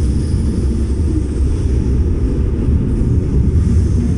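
Steady low rumble of an RER B commuter train running along the track, heard from inside the carriage.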